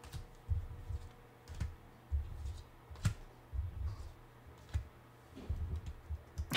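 Tarot cards being handled and laid on a table: irregular soft thuds and sharp clicks.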